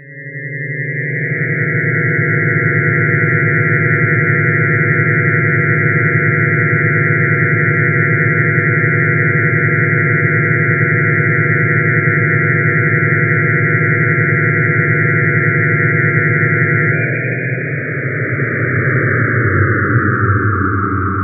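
Software synthesizer drones from a mesh of 64 voices in DIN Is Noise: a dense chord of many sustained tones swells in over the first second or two and holds steady. About 17 seconds in, the tones start to waver and slide downward in pitch as the drone mesh is set moving.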